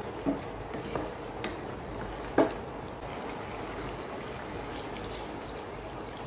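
A spoon stirring chunks of breadfruit and beef in a metal pot, knocking against the pot four times in the first few seconds, the last knock the loudest; then water is poured into the pot.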